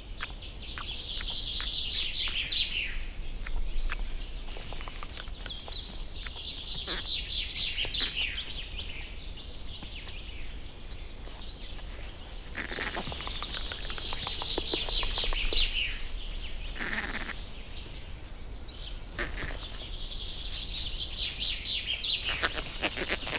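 A songbird singing a fast trilled phrase four times, each lasting two to three seconds and coming about every six to seven seconds, over quiet forest ambience.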